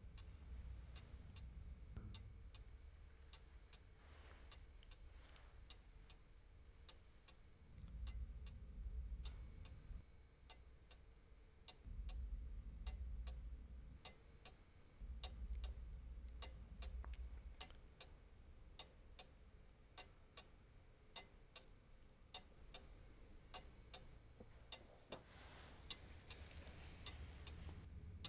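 A small mantel clock ticking steadily, about two ticks a second, in a quiet room. A low rumble swells and fades several times underneath.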